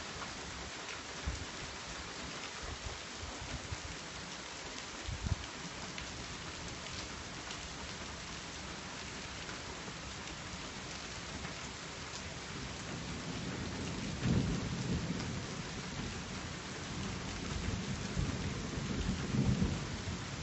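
Steady rain hissing, with thunder rumbling in from about two-thirds of the way through, swelling twice, the second time near the end. A couple of small knocks sound in the first few seconds.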